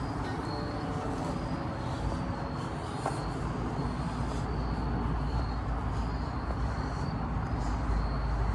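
Insects chirping in short, high-pitched pulses that repeat every second or so, over a steady low rumble.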